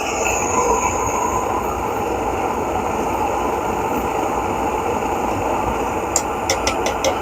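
Optimus 8R pressurized stove burner running with a steady rushing noise while heating water to the boil. Near the end, about five quick sharp clicks.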